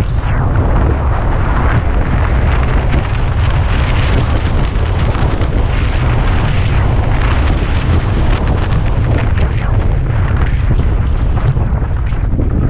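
Skis scraping and hissing over packed snow on a fast downhill run, with wind buffeting the microphone as a steady low rumble under it.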